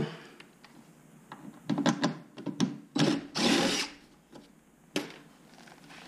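Cordless drill run in a few short trigger bursts, then a longer run of about a second, with a sharp click about five seconds in.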